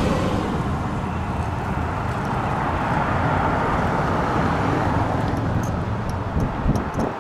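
Cars and police escort motorcycles of a motorcade driving away along the road: a steady rush of engines and tyres, with no sirens.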